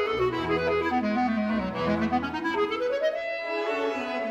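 Closing music: a clarinet playing a melody that runs down to a low note and climbs back up, over low sustained accompaniment that drops out a little past halfway.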